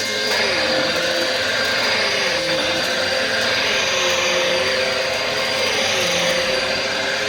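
Bissell vacuum cleaner running steadily with a high whine, its lower motor hum dipping slightly in pitch and recovering every second or so.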